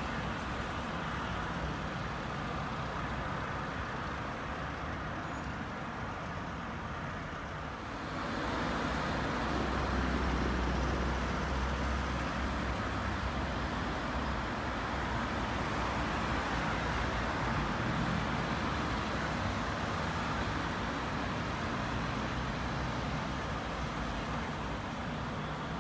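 City road traffic: a steady wash of passing cars. About eight seconds in it grows louder, with a deep engine rumble for a few seconds as a vehicle passes close.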